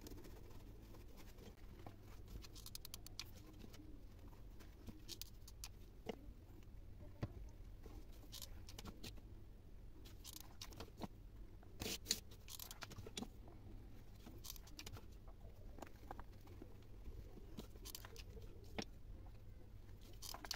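Faint, scattered light clicks and taps of wooden clothespin halves being handled and pressed onto a burlap-covered plastic container, over a low steady hum.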